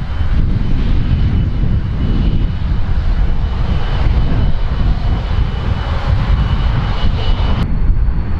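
Twin jet engines of a Dassault Falcon 2000 business jet running at taxi power: a loud, steady rumble with a thin high whine, which steps up in pitch near the end.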